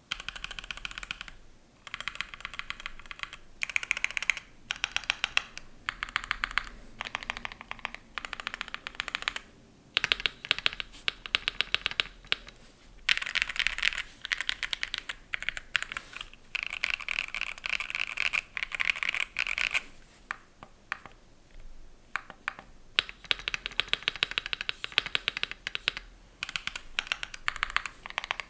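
Keychron Q2 mechanical keyboard being typed on, fitted with lubed Durock POM linear switches on a polycarbonate plate with PE foam. The typing comes in fast bursts of keystrokes with brief pauses between them.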